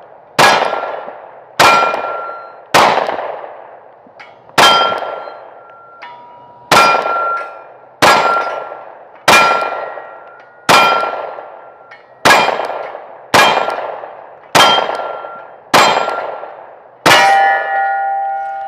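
Glock 43X MOS 9mm pistol fired at a slow, steady pace: about thirteen shots roughly a second apart. Each shot is followed by a metallic ring from the struck target. The pistol is cycling without a jam.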